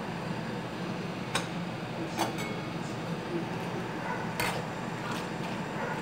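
Kitchenware clinking and knocking, about five short, sharp clicks spread across a few seconds, over a steady background hum.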